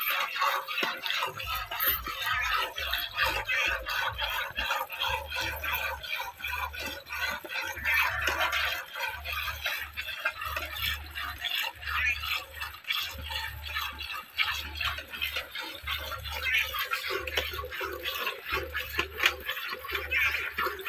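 Milk squirting by hand from a water buffalo's teats into a steel pail, in quick rhythmic streams hissing and splashing against the metal and the milk already in it.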